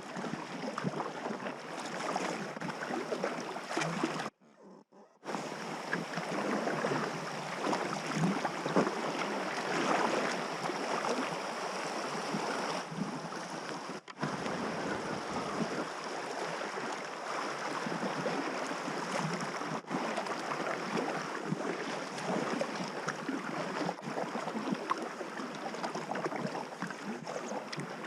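River water rushing and splashing around a packraft on the water. It drops out briefly about four seconds in.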